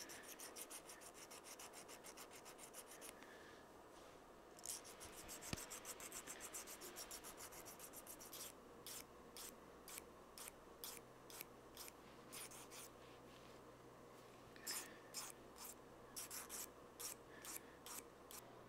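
Faint strokes of a Victorinox diamond file on the steel tips of pointed tweezers, taking off the burr left by bench grinding. Quick, closely packed strokes at first, then from about halfway on slower single strokes, roughly two a second, in short runs with pauses between.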